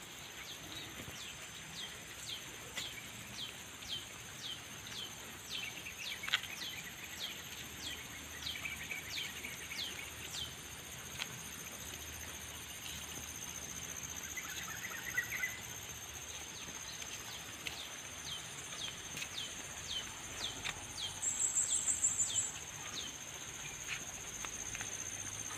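Birds and insects: one bird repeats a short falling chirp about twice a second, stops for a few seconds in the middle, then carries on, with a few brief warbled notes from other birds. Insects keep up a steady high-pitched drone throughout, and a loud high buzzing trill comes in near the end.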